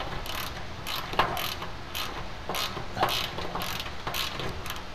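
Hand ratchet with a socket on an extension clicking in short runs, with brief pauses between swings, as half-inch bolts holding the chrome hood bar are worked loose from the underside of the hood.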